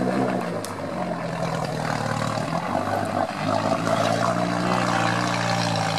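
UAZ off-roader's engine pulling under load as it wades through deep muddy swamp water, with water churning and sloshing around the wheels. The engine note eases off briefly about halfway, then comes back and climbs slightly in pitch.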